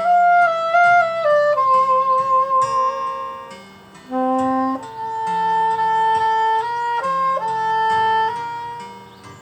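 Saxophone playing a slow melody of long held notes with a slight vibrato, over a soft accompaniment of low sustained notes. The melody pauses briefly between phrases.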